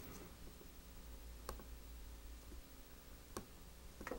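Faint handling sounds of fingers and a wooden sculpting tool working the soft clay head of a puppet: quiet room tone broken by a few faint, sharp clicks.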